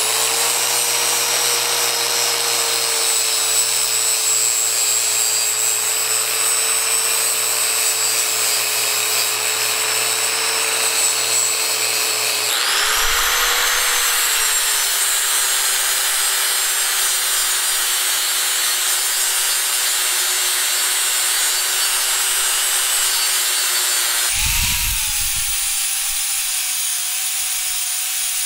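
An electric power tool running steadily under load: a constant motor whine over a rough, hissing working noise. The pitch and character change abruptly twice, about 12 and 24 seconds in.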